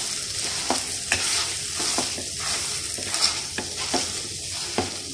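Boiled potatoes being mashed and stirred with spices in oil in a hot kadai: a steady sizzle with irregular taps and scrapes of the utensil against the pan.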